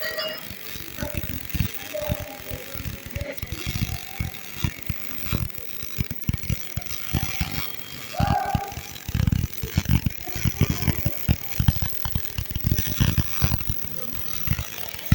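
MIG/MAG welding arc burning a root pass with 1.2 mm wire at about 120 A, crackling irregularly and unevenly.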